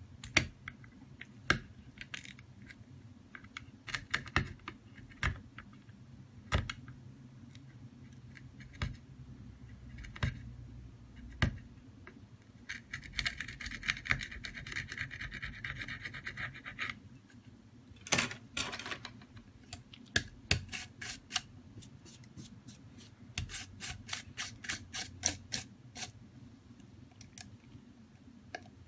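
Hands handling a Huawei Nova 5T's plastic frame on a silicone repair mat: scattered clicks and taps, a few seconds of scraping about halfway through, and a quick run of clicks a few seconds before the end.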